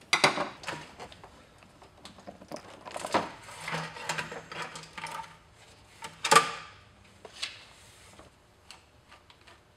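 Rubber air-intake boot being worked loose and pulled off the throttle body: scattered rubbing, scraping and knocking of rubber and plastic parts. There is a sharp knock right at the start and another loud one about six seconds in.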